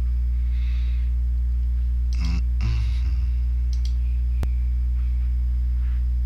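Steady electrical hum from a computer's recording input, with a few faint clicks; the sharpest click comes about four and a half seconds in.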